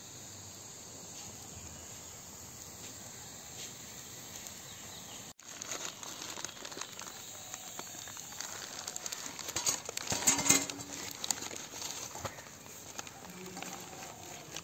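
Charred bamboo cooking tube being handled and opened over a steel plate: crackling, scraping and clicking of the burnt bamboo, with a louder clatter about ten seconds in. Before that there is only a faint steady hiss.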